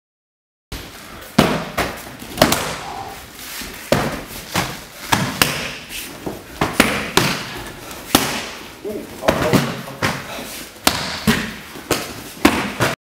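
Punches and kicks landing on hand-held Muay Thai pads: a string of sharp slapping thuds at an uneven pace, about one or two a second, starting about a second in.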